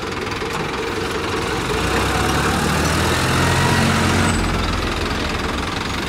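New Holland tractor's diesel engine running hard, its note swelling about two seconds in and easing back after about four and a half seconds.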